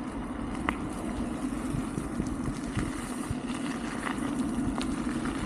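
Wolf King GT Pro dual-hub-motor electric scooter riding along: a steady motor hum under wind and tyre noise, with a few small ticks.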